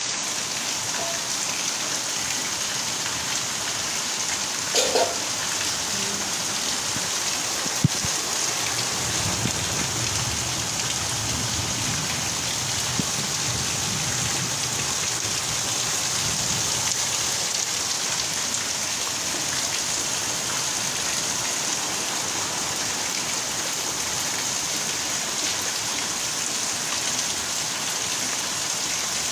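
Heavy rain pouring down steadily onto clay-tiled roofs and a waterlogged yard, a dense, even hiss. A single sharp click sounds about eight seconds in.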